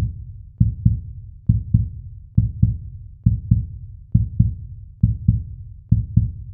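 Electronic music beat of heartbeat-like double low bass-drum thumps, one pair a little under every second, with no melody over it yet.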